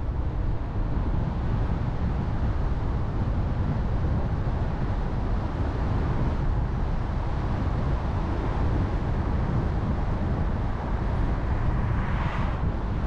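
Car driving on a road: a steady low rumble of tyres and engine, with a brief swell of hiss near the end.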